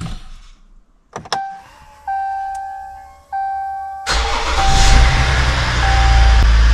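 2016 Ram 1500's 3.0-litre EcoDiesel V6 started by push button: a couple of clicks and dashboard chimes, then just after four seconds in the starter cranks and the diesel fires at once and settles into a steady idle. It starts first try, the loose battery-cable connection on the starter having been tightened.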